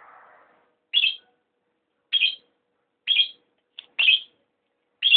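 Electronic fishing bite alarm chirping: five short, high chirps at about one a second, the alarm's signal that the rod is being pulled as by a bite.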